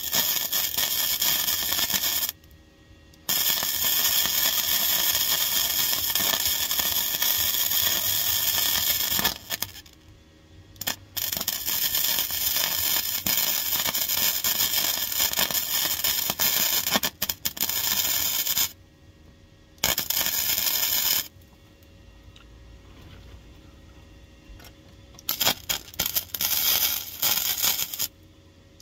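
MIG welder crackling and spitting as it welds the thin sheet steel of a car's rear floor pan. It comes in runs of a few seconds up to about eight seconds, broken by short pauses where the arc stops.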